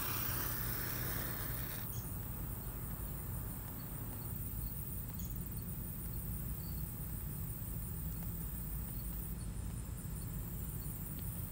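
A freshly struck wooden match hissing as it burns for about the first two seconds. After that, insects chirp faintly and steadily over a low, steady background noise.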